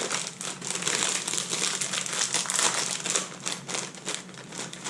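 A plastic snack bag of garlic plantain chips crinkling steadily as it is handled and opened.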